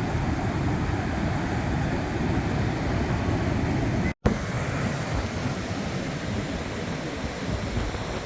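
Steady wind buffeting the microphone over the rush of ocean surf, mostly a low rumble. It cuts out for an instant about four seconds in, then carries on much the same.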